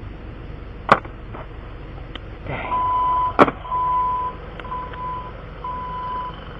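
Electronic beeping: a single steady tone sounding about once a second, five beeps starting a little under 3 s in. Two sharp knocks, one about a second in and one in the middle of the beeping.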